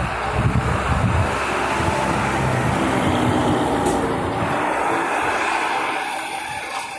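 A truck driving past on the street: engine and tyre noise builds over the first couple of seconds, peaks mid-way and fades away toward the end.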